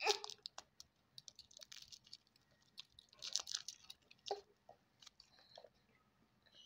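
Lollipop's plastic wrapper crinkling as it is peeled off by hand, a run of small crackles and rustles in short clusters.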